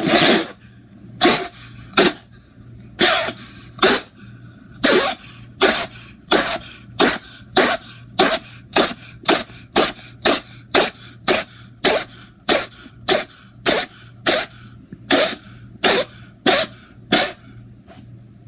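A fast run of about thirty short sneezes from a cat and a man, cut one after another. The gaps shrink from about a second to under half a second in the middle, then widen again near the end.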